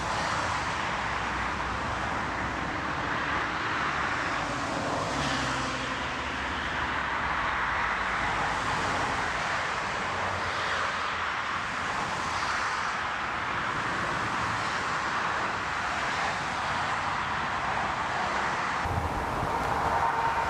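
Airliner jet engines running with a steady rushing noise.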